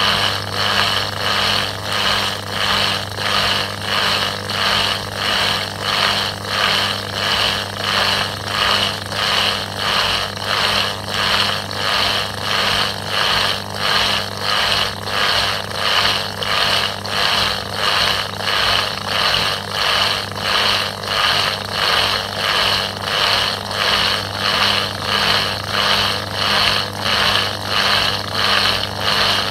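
Zanussi washing machine's drain pump running on a drain-only cycle: a steady electric hum under a rushing hiss of water being pumped out, which swells and fades evenly a little over once a second.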